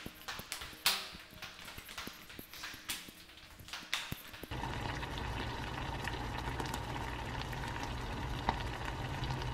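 Thong sandals slapping on stairs as someone climbs, a few scattered steps. About halfway through, a pot of doenjang stew takes over, bubbling steadily on a gas burner.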